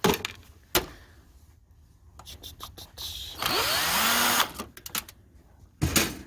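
A handheld power drill runs for about a second near the middle, its motor pitch rising as it spins up. Sharp clicks and clatter of handled hard parts come before and after it.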